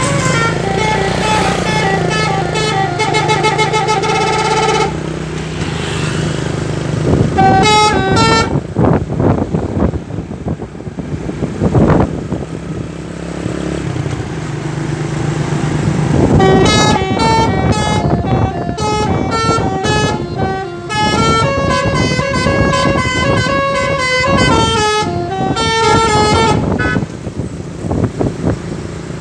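Basuri 'telolet' multi-tone bus horn playing melodies: a run of stepping notes for about five seconds, a short burst about eight seconds in, then a long tune over the last ten seconds or so. Between the tunes the bus engine and traffic noise are heard.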